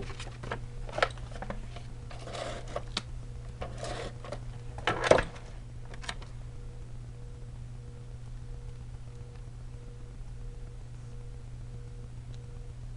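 Paper and craft pieces being handled on a tabletop: a run of light rustles and taps over the first few seconds, the loudest about five seconds in, then only a steady low hum.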